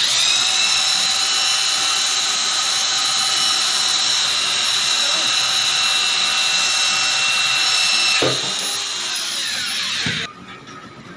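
Hand-held electric drill boring into a metal drum, a steady high-pitched whine. It drops in level about eight seconds in and stops just after ten seconds.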